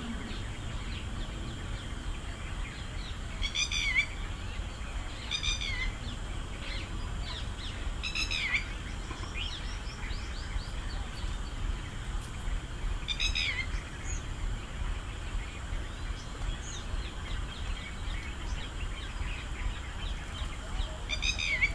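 Birds calling: one bird gives a short call that slides downward, five times at uneven gaps, with softer chirps from other birds in between, over a low steady background rumble.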